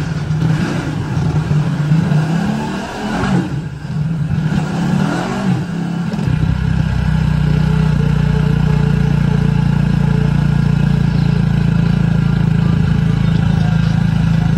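Motorcycle engine pulling away, its pitch rising and falling with the throttle for the first few seconds, then running at a steady speed in low gear from about six seconds in.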